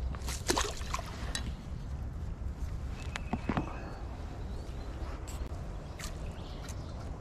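Small splashes and a few sharp clicks as a crappie is let go back into the creek at the bank's edge, over a steady low wind rumble on the microphone.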